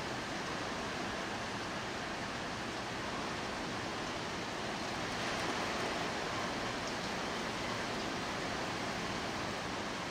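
Torrential rain pouring down in a steady, even hiss that swells slightly about halfway through.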